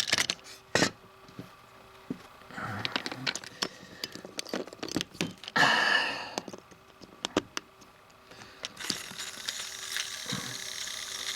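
Plastic clicks and rattles of a battery being fitted into a battery-powered Trackmaster Thomas toy engine, with a short scrape partway through. About nine seconds in, its small electric motor and gears start running with a steady whirring hiss.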